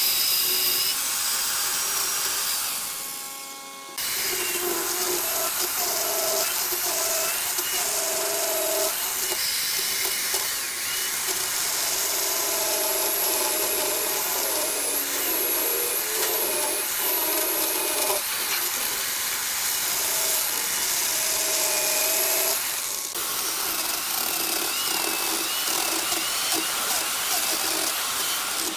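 Corded electric chainsaw cutting through thick wood, its motor whine wavering in pitch under load. It fades out briefly about three seconds in, then picks up again.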